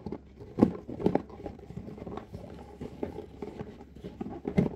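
A cardboard shoebox being tipped and shaken by hand, the shoes inside sliding and knocking against its sides in irregular thumps, the loudest about half a second in and near the end.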